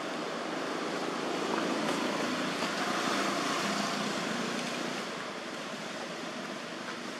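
Steady outdoor background noise: a continuous rushing hiss with no distinct events, easing slightly in level over the last couple of seconds.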